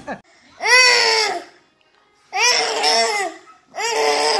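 A baby's voice: three drawn-out cries, each about a second long, rising then falling in pitch, with short pauses between them.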